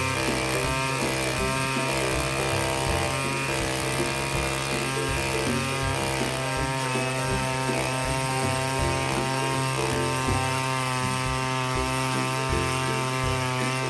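Gas-powered handheld ice auger's small engine running steadily under load as its bit bores a hole through the ice.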